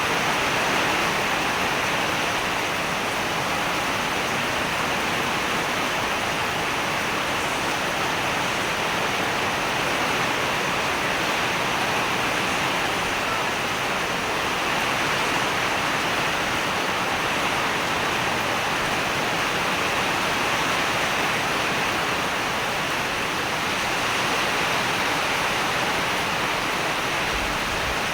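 Rain falling steadily, an even hiss with no distinct drops or pauses.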